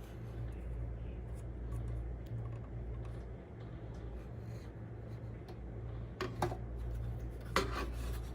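A steady low hum, with two short scraping rubs about six and seven and a half seconds in.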